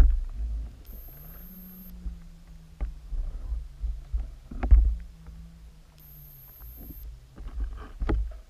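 Muffled underwater rumble as heard by a submerged camera, broken by irregular knocks and clicks, the loudest about four and a half seconds in and a cluster near the end. A faint low hum runs underneath from about a second in.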